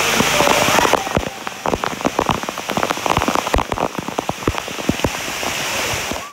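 A heavy shower of water pours from a cave ceiling into a pool, with drops splattering on the water close by. It starts as a dense hiss, and after about a second it breaks into a patter of separate heavy drops. It cuts off abruptly at the end.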